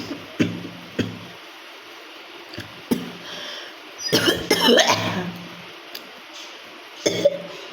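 A woman coughing from a cold: two short coughs near the start, another around three seconds in, a longer fit of several coughs about four seconds in, and one more near the end.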